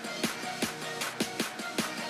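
Electronic background music with a steady beat, about two and a half strikes a second, over held synth tones.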